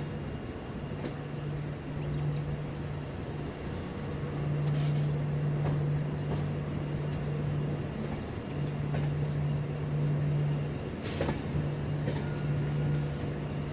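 Running noise of a moving express train heard from inside a passenger coach: a steady rumble of wheels on track with a low hum that cuts in and out every few seconds, and a few sharp knocks.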